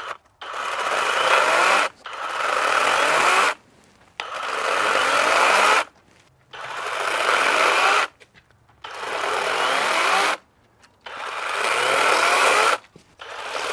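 A motor running in six repeated bursts of about a second and a half each. Each burst builds up with a faintly rising pitch and then cuts off sharply.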